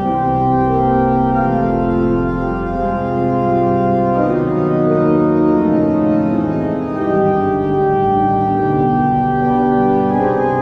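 Beckerath pipe organ playing a chorale prelude: sustained chords that move every second or so, over deep bass notes.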